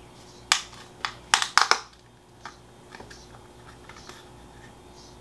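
Snap-on plastic lid of a deli cup being pried open by hand: a run of sharp plastic clicks and cracks in the first two seconds, bunched together near the end of that run, then a few faint ticks.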